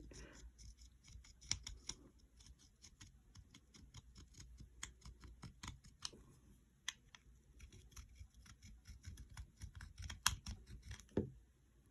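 Faint, irregular clicks and scrapes of a metal burnishing tool rubbing over soft solder on a jewellery piece, smoothing out white spots left by overheating the solder. A few sharper ticks stand out among them.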